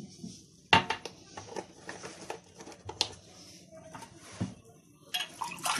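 A few separate light knocks and clicks of kitchen handling around a glass mixing bowl, about a second in, near three seconds and near four and a half seconds, with a busier patch of handling noise near the end.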